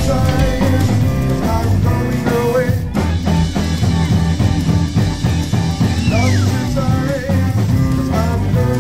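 Live rock band playing: electric guitar, bass guitar, drums and electric keyboard, with a steady beat. One note glides down in pitch about six seconds in.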